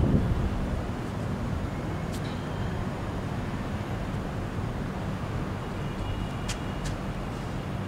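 Steady low rumble of city traffic, with a few brief sharp clicks about two seconds in and again near the end.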